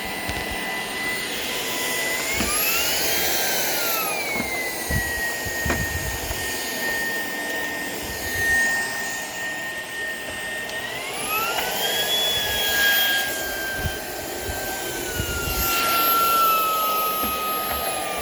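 Shark PowerDetect cordless stick vacuum running steadily on a floor. Its motor whine rises in pitch about two seconds in and again about eleven seconds in, then settles back down each time. A few light knocks are heard as it is pushed around.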